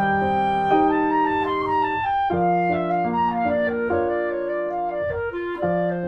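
Instrumental background music: a woodwind melody held in long notes over piano.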